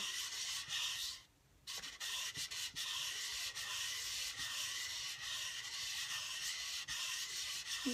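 A cast resin bangle's rough edge being wet-sanded by hand on wet/dry sandpaper, rubbed in circles: a steady gritty rubbing, with one short pause about a second in.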